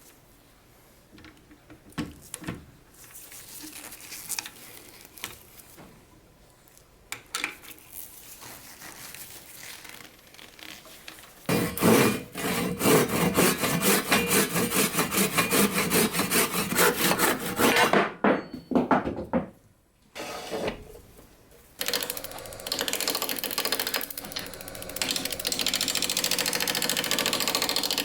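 Woodworking lathe turning a blank of worm-eaten driftwood and resin: a turning tool cutting the spinning piece with a fast, rattling chatter, in two long spells with a pause of a few seconds between them. The first part is quieter, with only a few knocks.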